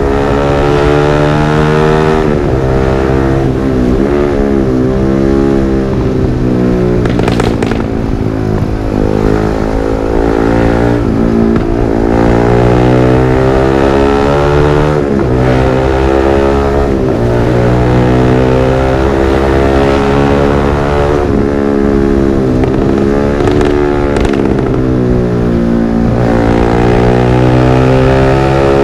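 Yamaha R15 V3's 155 cc single-cylinder engine through a Villan MP1 aftermarket exhaust, running loud with the revs rising and falling several times, with a brief sharp crack about seven seconds in.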